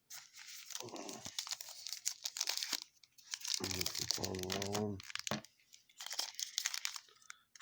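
Foil wrapper of a trading-card pack crinkling and crackling as it is opened by hand.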